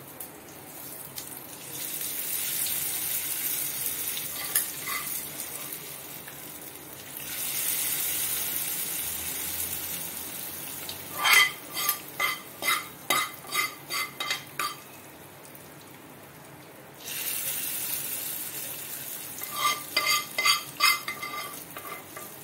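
Hot tempering oil (tadka) with garlic, mustard and cumin seeds, dry red chilies and curry leaves sizzling in long hissing stretches as it is poured from the frying pan onto tomato chutney. A metal spoon clinks and scrapes against the pan in a quick run of strikes midway and again near the end.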